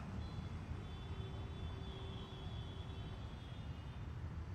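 Outdoor city ambience: a steady low rumble of distant road traffic, with a faint thin tone between about one and three seconds in.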